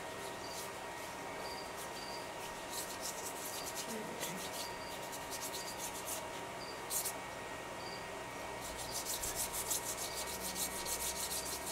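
Small paintbrush scrubbed across book-page paper, brushing on purple paint in scratchy strokes. The strokes come in scattered bursts, then quicken into rapid back-and-forth brushing about three-quarters of the way through.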